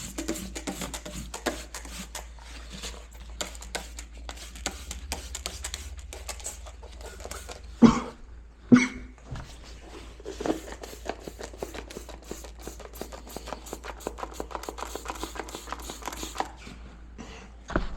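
Scrubbing inside a porcelain toilet tank: rapid, uneven scraping and ticking, with two louder knocks about eight and nine seconds in, over a low steady hum.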